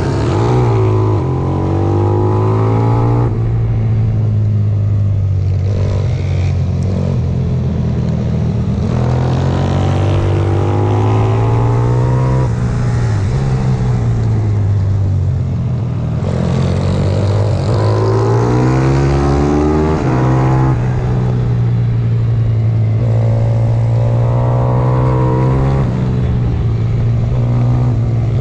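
Onboard sound of a 140cc pit bike's single-cylinder engine at race pace. The revs climb again and again, each climb cut off by a gear change.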